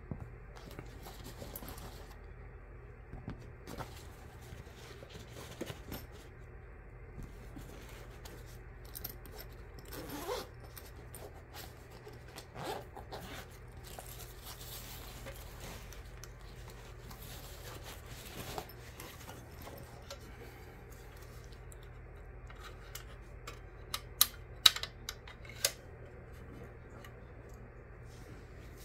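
Handling noise of radio gear being unpacked from a padded carry bag: rustling of the bag, a zipper, and cables and a coiled microphone cord being laid down, with scattered small clicks. A few sharp clicks near the end, the loudest sounds here, come as the transceiver is set up on its folding stand.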